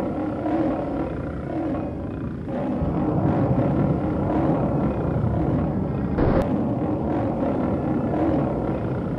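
Sci-fi monster roaring sound effects over a low rumble, continuous through the attack, with a sudden sharp hit about six seconds in.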